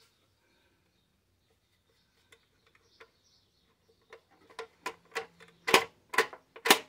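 Light clicks and knocks of the fare box's sheet-metal housing being handled. A few faint ticks at first, then from about four seconds in a quick run of sharper, louder clicks, roughly two a second.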